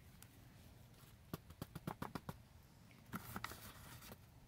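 Faint crinkles and taps of a paper seed packet being handled and shaken to get the seeds out: a quick run of sharp clicks starting about a second in, and a second cluster near the end.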